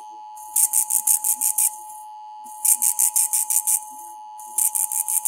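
Electronic emergency alert tones: a steady mid-pitched tone under repeated groups of about eight quick, high-pitched beeps, one group roughly every two seconds.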